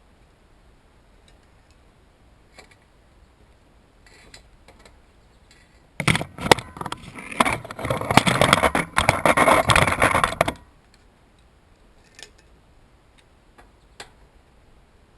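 Loose metal clattering and rattling, a loud burst of about four and a half seconds midway, with faint clicks before and after.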